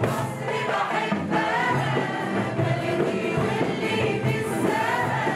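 A choir singing a song to keyboard accompaniment.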